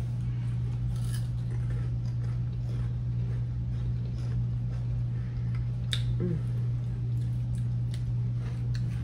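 A steady low hum, with faint scattered clicks and crackles over it and one sharper click about six seconds in.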